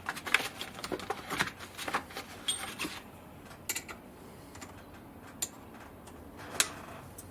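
Irregular light clicks and taps, close together for the first three seconds, then a few scattered ones.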